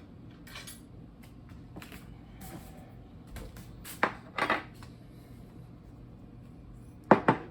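Kitchen clatter: dishes and utensils knocking. There is a sharp knock about four seconds in, a short rattle right after it, and two quick knocks near the end.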